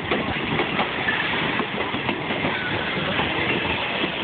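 Railroad passenger cars rolling past close by, their steel wheels clicking and clattering steadily on the rails.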